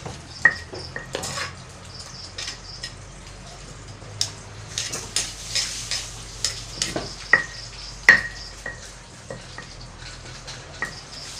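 Irregular clinks and knocks of metal utensils against a large steel tray and in a mortar as som tam is stirred and handled, a few of them ringing briefly.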